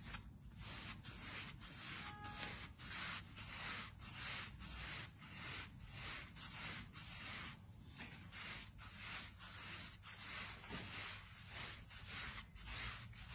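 Hands dragging and turning a ball of pizza dough against a floured wooden board as they fold and round it. This makes an even run of rubbing strokes, about two to three a second.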